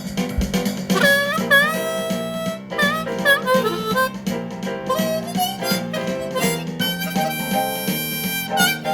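Blues music: a harmonica playing notes that bend in pitch, over a steady repeating backing riff.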